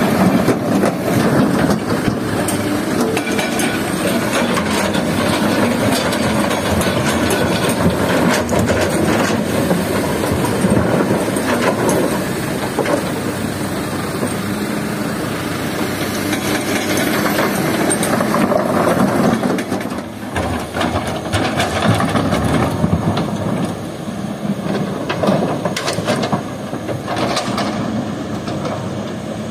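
Kobelco hydraulic excavator working: its diesel engine running steadily under load while rocks clatter and thud into a steel dump-truck bed as the bucket empties, then scrape and knock as the bucket digs into a rock pile. Sharp knocks of stone on steel come throughout.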